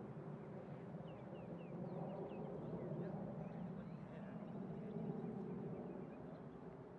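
Outdoor ambience: a steady low hum, with a few brief high chirps from small birds between about one and two and a half seconds in.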